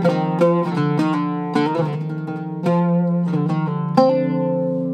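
Zaryab oud with a cedar top played solo: a run of quick plucked notes, then a single plucked note about four seconds in that rings on.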